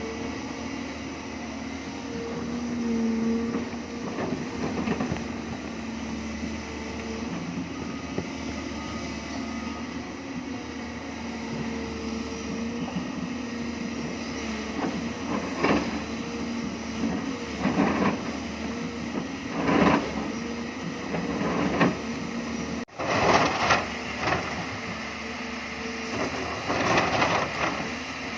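A Hyundai hydraulic excavator's diesel engine runs steadily, with louder bursts of scraping and crunching every few seconds as the bucket cuts into limestone.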